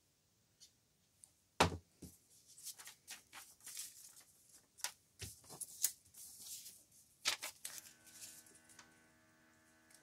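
Sheets of paper being handled, glued and folded by hand, with a run of rustling and crinkling. There is a sharper knock on the table about two seconds in and another around five seconds. Near the end a faint steady hum of several tones comes in.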